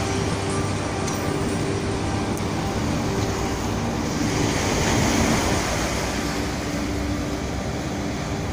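Steady rush of surf washing over a pebble and rock shore, swelling about five seconds in as a wave breaks.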